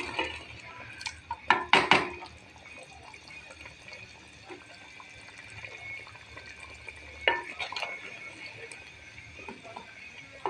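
A spoon stirring mutton curry in a clay pot, knocking against the pot a few times, most sharply about 2 s and 7 s in. The thin gravy is bubbling as its water cooks off.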